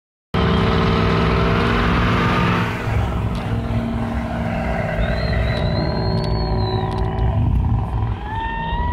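Pickup truck doing a burnout: its engine is held steady at high revs while the rear tyres spin on the asphalt, with thin tyre squeals rising and falling about five seconds in and again near the end.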